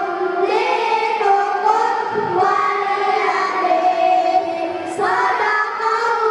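A group of children singing together in long, held notes that move slowly in pitch.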